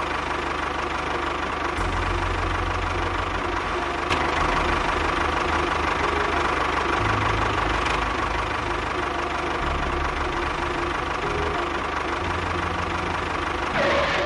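Tractor engine running steadily with a low, rapid knocking chug. It cuts off near the end.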